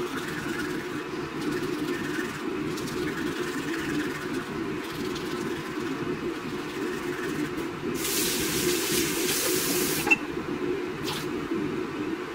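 Toothbrush scrubbing teeth over a steady low hum, then a tap running with a hiss for about two seconds, cut off with a sharp click and a short second hiss just after.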